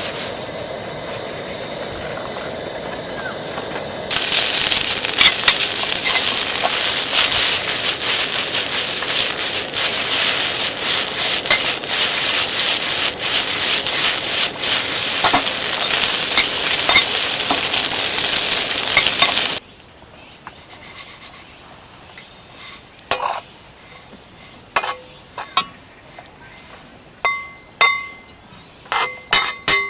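A steady hum for about four seconds, then food sizzling and crackling loudly in a hot pan for about fifteen seconds. It cuts off suddenly to quiet, with scattered light clinks of metal or glass.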